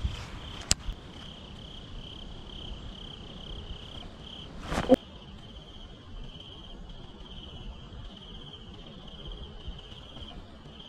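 Crickets chirping: a steady high-pitched pulsing trill. A sharp click comes just under a second in, and a short, louder noise about five seconds in.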